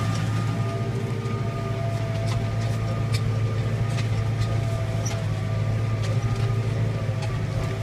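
Claas Arion 440 tractor's diesel engine running steadily while ploughing, heard from inside the cab, with a steady whine above the engine's hum and scattered light clicks and rattles.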